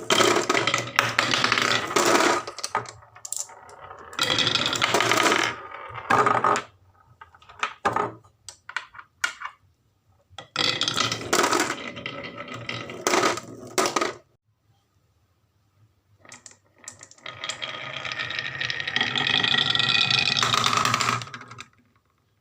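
Marbles rolling and clattering down a wooden marble run in several rattling runs of a few seconds each, with pauses of scattered single clicks between them.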